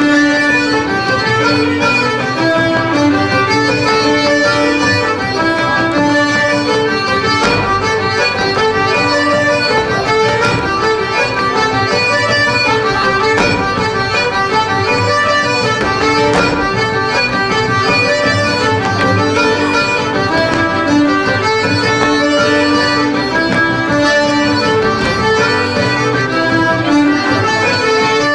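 Live Irish traditional set-dance music: a lively tune led by fiddle, with bodhrán and keyboard accompaniment keeping a steady dance beat.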